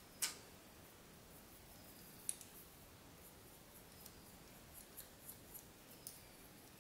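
Small parts being handled by hand: a sharp click about a quarter second in, another just after two seconds, then a few fainter ticks and taps.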